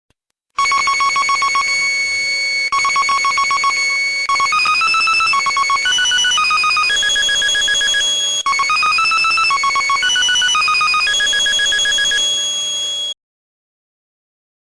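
Pachinko machine electronic win sound effect: a fast ringing trill like a telephone bell, sounded twice, then a melody of beeping tones stepping up and down, played twice over. It cuts off abruptly.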